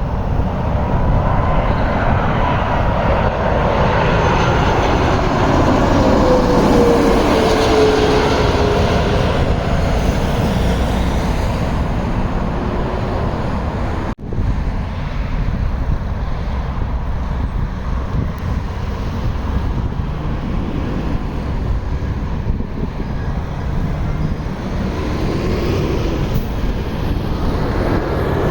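Jet airliner on landing approach passing close by: a loud engine rumble with a whine that falls in pitch as it goes past. The sound breaks off suddenly for an instant about halfway through, then the rumble of the next approaching jet builds again near the end.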